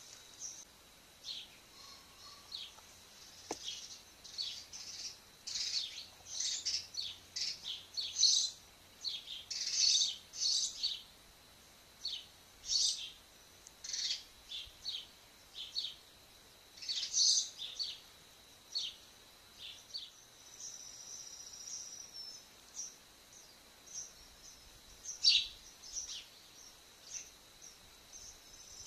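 Birds chirping and calling: many short, high chirps in irregular bunches, with a faint steady high whine underneath.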